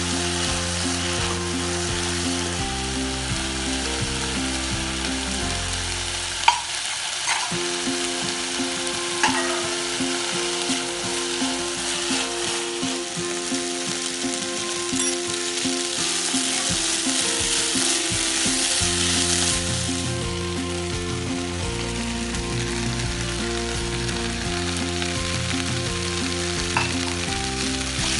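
Chopped banana flower sizzling as it fries in oil in a wide pan while a wooden spatula stirs it, with a few sharp clicks of the spatula against the pan.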